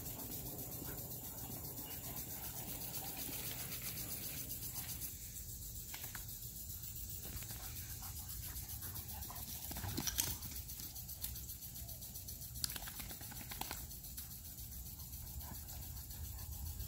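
Steady high-pitched chirring of evening insects, with two sharp clicks about ten and twelve and a half seconds in.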